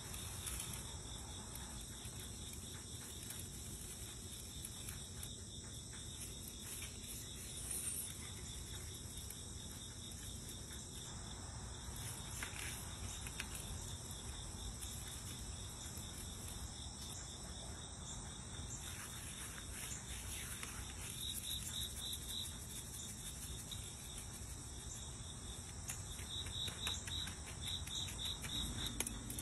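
Faint, steady high-pitched insect chirring over low background noise, with short runs of quicker pulsed chirps about two thirds of the way in and again near the end.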